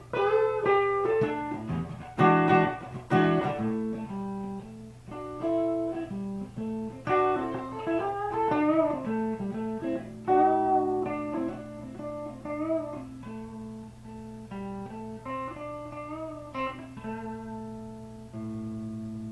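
Custom T-style electric guitar played clean through its neck pickup: bluesy single-note lines and chords, some notes bent. A steady low hum runs underneath.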